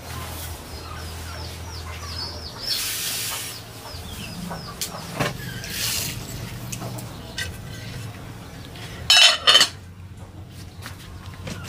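Chickens clucking, with a run of short high chirps in the first few seconds. There are a few brief noisy bursts, and a short loud burst about nine seconds in.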